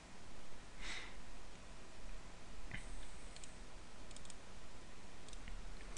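Steady microphone hiss and low hum in a small room, with a few soft, short computer-mouse clicks between about three and five and a half seconds in.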